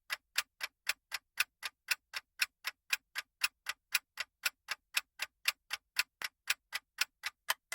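Countdown-timer ticking sound effect, an even clock-like tick about four times a second.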